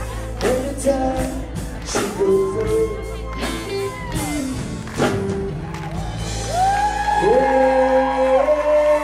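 Live band playing a song with a singing voice over drum hits and held bass notes; the singing swells louder about two-thirds of the way through.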